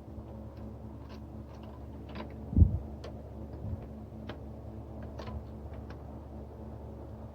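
Scattered light clicks and taps of hand tools working on the engine, with one dull thump about two and a half seconds in, over a steady low hum.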